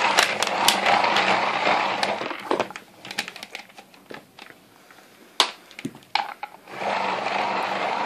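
Numatic Henry HVR200's hand-wound cable rewind: the reel in the top is turned to wind the long cord back in, a whirring rattle in two spells with a few sharp clicks in the quieter gap between. It is the older style of Henry rewind, which sounds different from the rewinds on newer Henrys.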